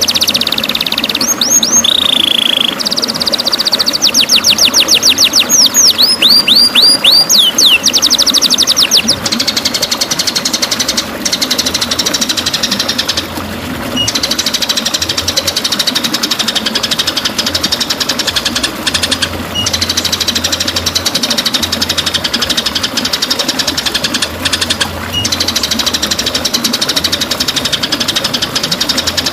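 White-rumped shama (murai batu) singing: a quick series of sweeping whistled notes, changing about nine seconds in to a dense, very fast rattling trill that continues to the end.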